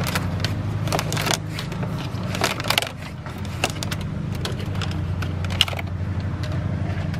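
Camera wire being pulled through behind loosened plastic car interior trim: rustling and clicking of the cable and panel being handled, busiest in the first three seconds and sparser after. A steady low hum runs underneath.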